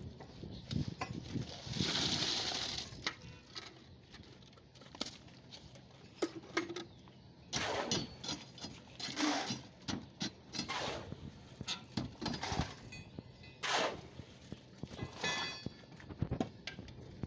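Wet concrete tipped from a bucket into wooden stair formwork, sliding out in a rush about two seconds in, followed by irregular knocks and scrapes of work on the forms and the wet concrete.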